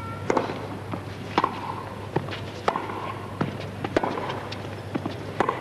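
Tennis rally: a tennis ball struck by rackets about every second and a half, with ball bounces between the hits and a few short squeaks after some shots.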